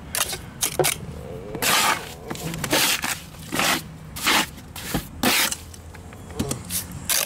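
A small steel trowel scraping wet Rapid Set Cement All patching cement against concrete, in short strokes about once a second.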